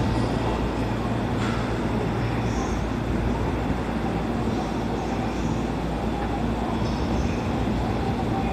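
Yokosuka Line electric commuter train beside the platform, its machinery giving a steady low hum with faint higher tones over the station's background noise.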